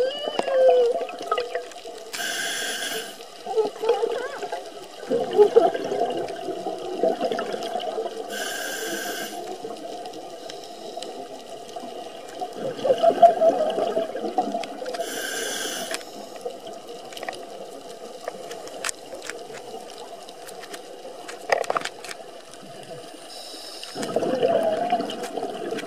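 Scuba diver breathing through a regulator underwater: three breaths, each a short hiss of inhaled air, then a longer bubbling rush of exhaled air.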